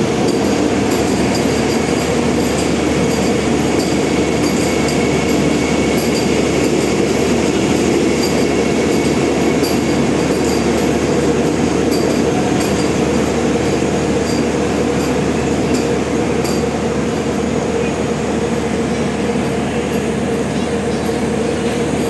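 Vande Bharat Express electric multiple-unit train rolling past a platform as it pulls in: a steady rumble from its coaches with scattered light clicks, easing a little near the end.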